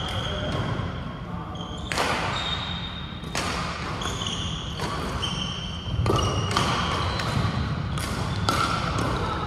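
Badminton play: sharp racket-on-shuttlecock hits at irregular intervals, about one a second, mixed with brief squeaks of court shoes on the hall floor, over a steady low hum.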